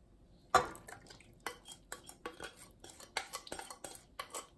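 Wooden spoon scraping and knocking against a glass mixing bowl and a stainless steel pot as thick chili seasoning sauce is scraped out onto chicken pieces: a run of irregular clinks and scrapes, the first about half a second in.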